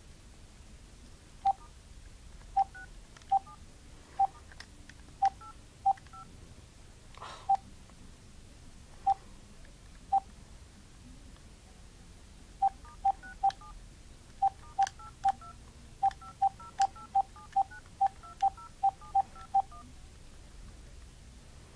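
Cordless phone handset keypad tones as a number is dialed, one short two-tone beep per button press. About ten presses are spaced out, then a quicker run of about eighteen comes near the end.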